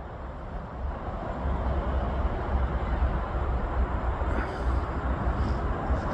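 Freeway traffic: a steady rushing noise with a deep, uneven rumble that grows louder over the first couple of seconds.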